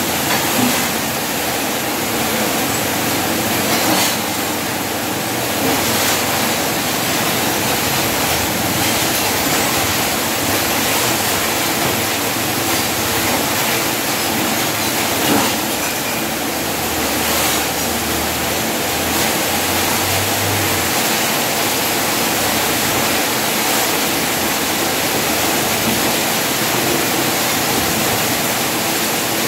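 Electric arc welding on a steel gate frame: the arc's steady crackling hiss, broken by a few sharp pops.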